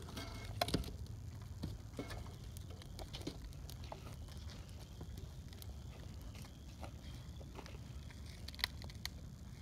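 Quiet outdoor ambience: a steady low rumble with scattered faint clicks and crackles, a slightly louder pair of clicks near the end.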